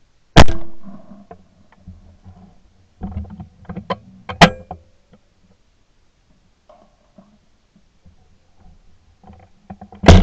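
Shotgun shots from the gun carrying the camera: a loud report with a trailing decay about half a second in, and another near the end. Between them come handling clatter and a single sharp crack.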